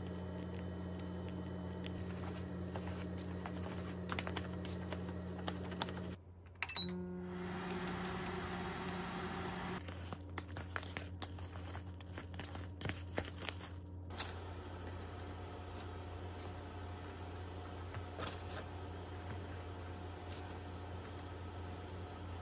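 Small clicks, taps and rustles of food being handled: a sauce sachet squeezed and chopsticks stirring noodles against a paper cup, over a steady low hum.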